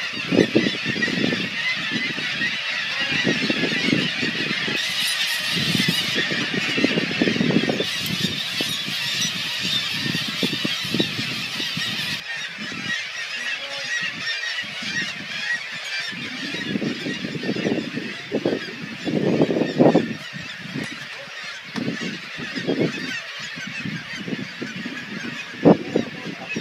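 A colony of black-legged kittiwakes calling continuously overhead in a dense, overlapping chorus, with irregular low rumbles underneath.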